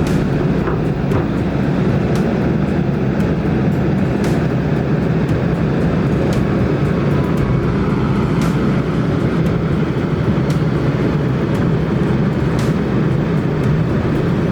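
Kobelco SK200 excavator's diesel engine running steadily under load, with scattered sharp clicks and knocks as it works the slope.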